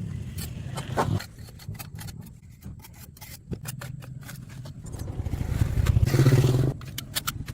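A motor running with many clicks and knocks, growing louder from about five seconds in and dropping away near the end.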